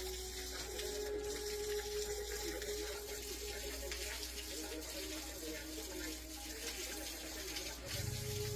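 Water running steadily, with a low hum coming in near the end.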